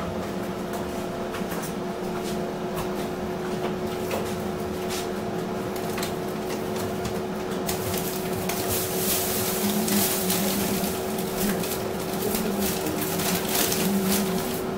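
Steady mechanical hum from a kitchen appliance. From about halfway in, rustling, clicks and knocks of frozen food packages being moved around inside an open refrigerator top freezer.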